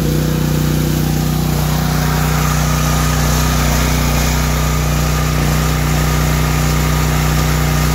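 Generac MegaForce 6500 portable generator's engine running steadily at governed speed under an electrical load, holding its pitch with the output at about 60.9 Hz.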